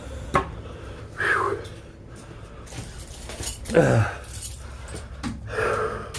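A bunch of keys jangling, with a sharp click near the start, and short pained groans from a man in between. His fingers are numb with cold and can hardly work the keys.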